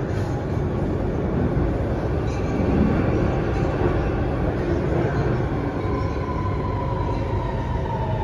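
Interior running noise of an Alstom Metropolis C830C metro train car: a steady rumble of wheels and running gear. From about six seconds in, a faint whine slowly falls in pitch as the train slows into a station.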